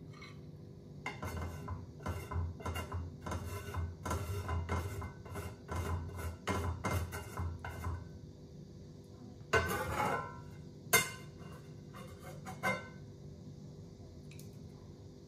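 Metal utensil scraping a frying pan in quick, uneven strokes for several seconds, then a ringing clank against the pan and two sharp taps. A steady low hum runs underneath.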